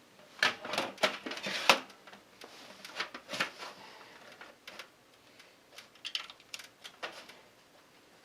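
Clicks and rattles of a SATA cable and its plastic connector being worked through the back of a PC case: a quick flurry of clicks in the first two seconds, then scattered clicks.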